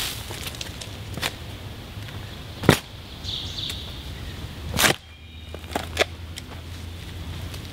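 Shovel blade being driven into root-filled forest soil: a few sharp chops and scrapes, the loudest about two and a half seconds in and another about five seconds in.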